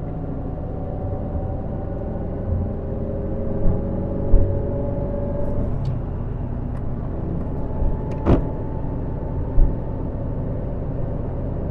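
Car driving, heard from inside the cabin: steady engine and tyre rumble, the engine note rising slightly in the first half. There are a few low thumps from the road surface and one sharp knock about eight seconds in.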